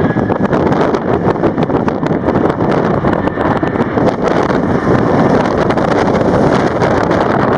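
Strong wind buffeting the microphone with constant crackle, over the broad rumble of a jet airliner's engines at takeoff power. A rising engine whine fades out in the first half second.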